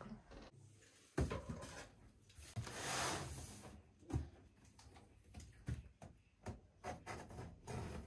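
Cardboard box of a new microwave oven being handled and worked open by hand: scattered knocks and clicks, with a longer scraping rub about three seconds in.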